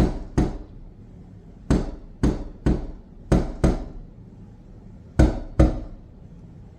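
A series of about eleven sharp, loud knocks, mostly in pairs about a third of a second apart, with pauses of a second or so between the pairs.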